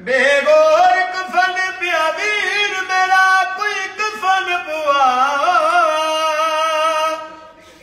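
An elderly man sings a noha, a traditional Shia lament for Husayn, in a single solo voice. It is one long drawn-out phrase with a wavering, ornamented pitch, and it trails off near the end.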